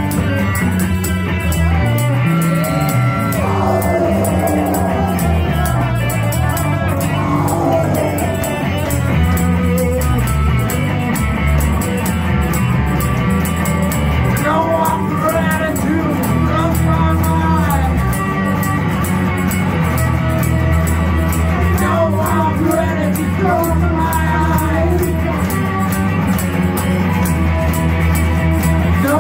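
Live rock band playing loud: electric guitar and bass guitar over a steady beat, with a man singing.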